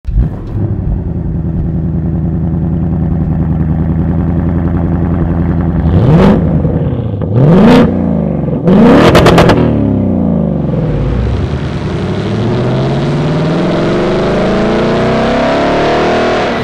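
Ford Mustang Dark Horse's naturally aspirated 5.0-litre Coyote V8 fires up and idles, then is blipped three times, revs rising and falling quickly. From about eleven seconds the revs climb slowly and steadily under load on a chassis dyno, with a rising hiss over the engine.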